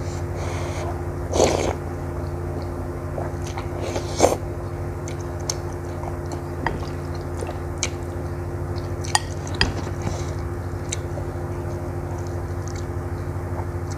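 A person eating instant noodles and bakso meatballs: two short, loud noodle slurps about one and a half and four seconds in, then chewing with scattered sharp clicks. A steady low hum runs underneath.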